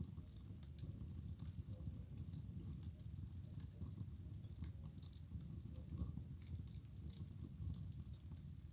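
Wood fire burning in a fireplace, crackling with many small irregular pops over a low, steady rumble of the flames.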